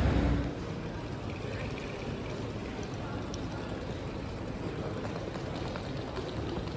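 Railway station concourse ambience under an iron-and-glass roof: a steady wash of distant voices and hall noise. A low rumble cuts off about half a second in.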